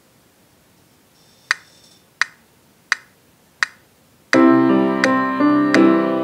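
A metronome clicks four times at a steady beat as a count-in, then a piano accompaniment comes in with sustained chords for a pitch exercise, the metronome still clicking on each beat.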